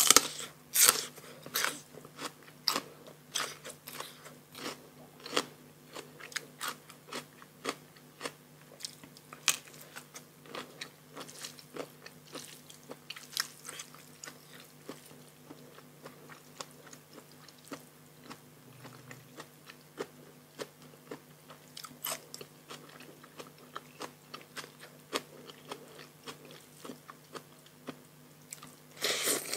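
Close-miked eating sounds: irregular crisp crunching bites and chewing of fresh raw vegetables and food, over a faint steady low hum.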